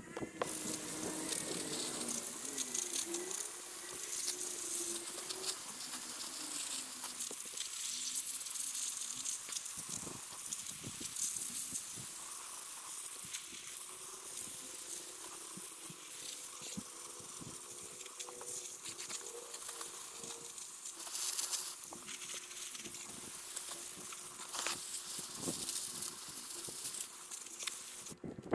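A shovel digging soil, sped up, so the scrapes and strikes run together into a fast, hissing clatter of quick clicks.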